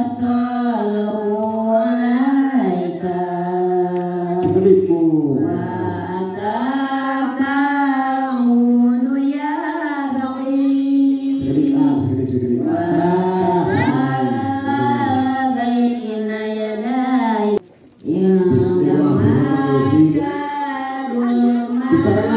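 Sundanese kacapi suling music with sung vocal lines, long wavering phrases held and bent in pitch. It drops out for a moment near the end, then resumes.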